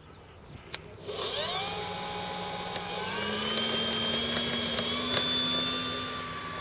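Brushless electric motor (C&G 4250 540kV) turning a three-blade 14x10 propeller on a scale RC F4U Corsair model, whining as it spools up about a second in and stepping up in pitch twice more as the throttle opens for the takeoff roll. A short click comes just before the motor starts.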